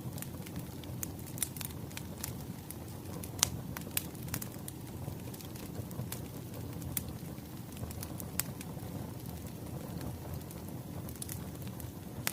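Crackling wood fire: a steady low rumble with irregular sharp pops and snaps, the loudest about three and a half seconds in.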